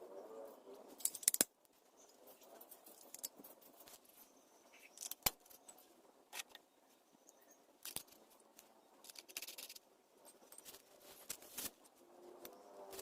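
Metal tools and parts clinking and clicking by hand, in scattered sharp knocks with a loud cluster about a second in.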